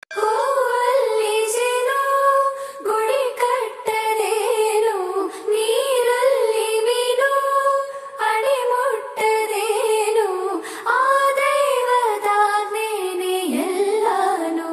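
High voices singing a slow, ornamented melody with gliding notes, the opening of a Kannada devotional song to the goddess Sharada. No words are made out.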